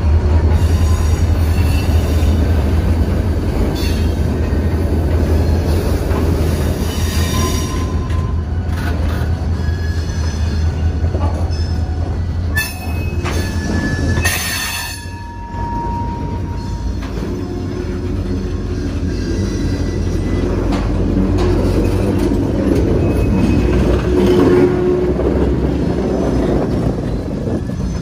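Freight cars rolling past on the track: a steady rumble of steel wheels on rail, with wheels squealing now and then in short high tones.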